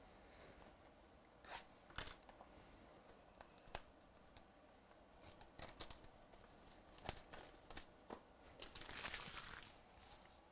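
Hands handling a cardboard trading-card box and its wrapping: scattered sharp crinkles and clicks, then about a second of tearing near the end as the wrapping is ripped open.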